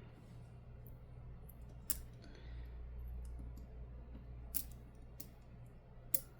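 A few faint, sharp clicks and taps of small repair tools against a smartphone's parts, spaced a second or two apart, over a low steady hum.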